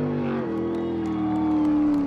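Jet sprint boat engine running at high revs with a steady drone, its pitch easing slightly downward.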